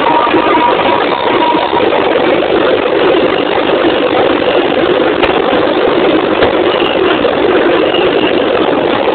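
Samba school drum section (bateria) playing loudly, heard through a phone microphone that overloads it into a dense, steady roar with no clear beat.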